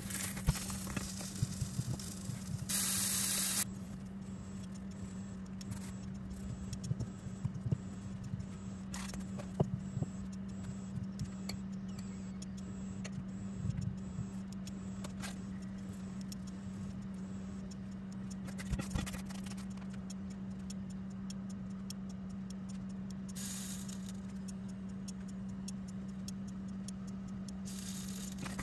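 Stuffed flatbread frying in a dry nonstick pan: light crackling and ticking over a steady low hum. A short burst of hiss comes about three seconds in, and two more near the end.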